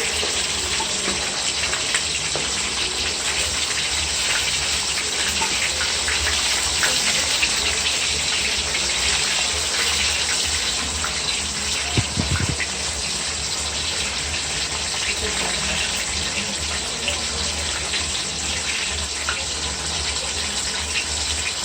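Coated chicken pieces deep-frying in very hot oil: a steady sizzle with dense crackling. A short low thud about halfway through.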